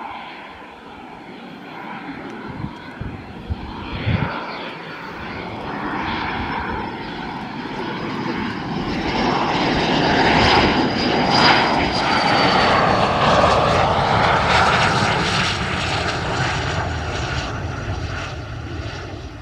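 BAE Hawk T2 jet trainer's single Rolls-Royce Adour turbofan on approach to land, a jet rush with a high whine that grows loud as the aircraft comes close, about halfway through. The whine drops slightly in pitch, and the noise eases off as the jet rolls out along the runway.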